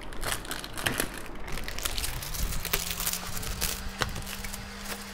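Cardboard box and plastic wrapping crackling and crinkling as a boxed dry iron is unpacked by hand, with a low steady hum coming in about two seconds in.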